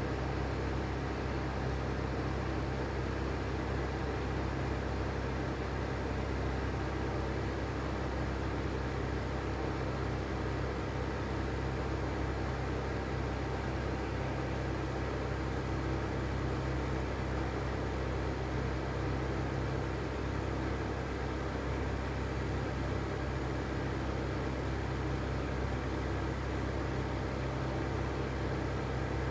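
Lanson Style 3 exhaust fan running steadily, hissing over a low hum. Its bearings are worn and due for replacement.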